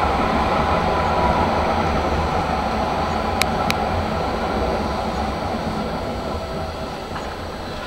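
Tram running on its rails, heard from inside the car: a steady rumble of wheels and traction motors, with two sharp clicks about three and a half seconds in. It grows gradually quieter over the second half as the tram slows into a stop.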